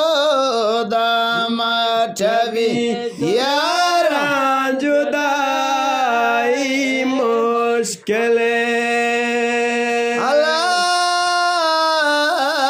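Male voice singing a Balochi chogan devotional chant: a long, ornamented wordless phrase of held, wavering notes and glides, with a short breath-like break about eight seconds in.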